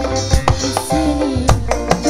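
Live dangdut band music over a PA: held melody notes over a steady bass line, punctuated by sharp hand-drum strikes.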